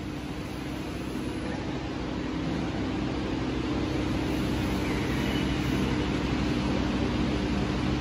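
Steady hiss with a low, even hum from a hall's air conditioning and open PA system, growing slowly louder.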